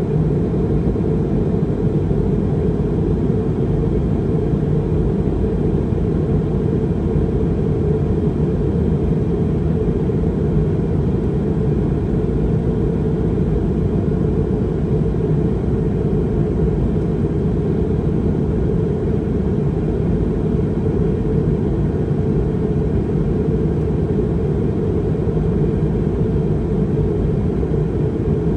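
Steady low rumble of an Airbus A320 in cruise flight, heard from inside the passenger cabin: engine and airflow noise at an even level with no change.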